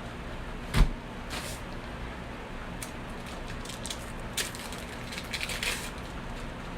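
Kitchen handling sounds: a sharp knock about a second in, then a few light clicks and a short run of clattering and rustling as sandwich ingredients are handled on the counter.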